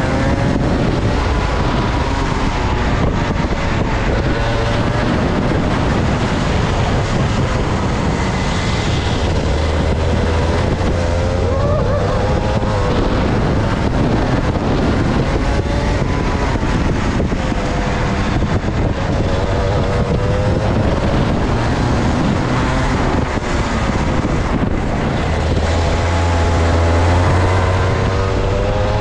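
Two-stroke kart engine running hard on track, its pitch climbing and dropping again and again as the kart accelerates out of corners and lifts into them.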